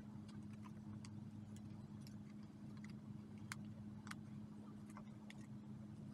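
Steady low electrical hum under scattered small, irregular clicks and taps from a hand pressing and smoothing paper onto a journal page.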